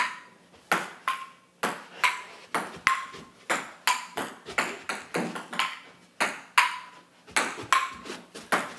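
Table tennis rally: the ball clicking back and forth off the paddles and the table, about two to three hits a second, many of them followed by a brief ring.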